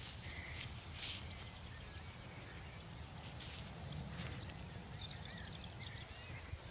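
Faint open-field ambience: small birds chirping now and then over a low steady rumble, with a couple of soft rustles.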